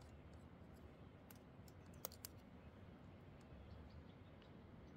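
Near silence: a faint low background hum with a few soft, sharp clicks, the clearest two about two seconds in.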